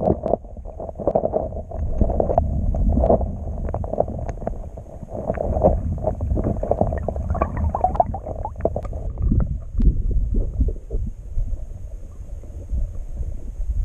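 Muffled underwater churning and rumbling of river water heard through a submerged camera, with many short knocks and clicks as a hand moves among the stones and picks up a crayfish. A faint steady high whine runs underneath.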